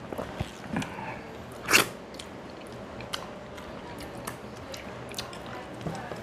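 Eating rice by hand: fingers mixing rice with okra curry on a steel plate, and chewing, with many small clicks and one louder short sound about two seconds in.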